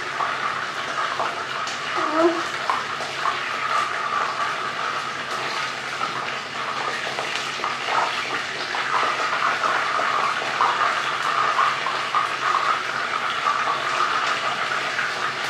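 Battered chicken pieces deep-frying in a pot of hot oil: a steady sizzle with many small crackles.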